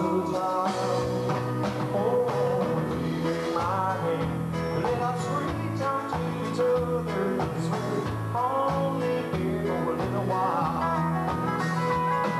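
Live country band playing an instrumental passage of a song, with electric guitar and bass guitar.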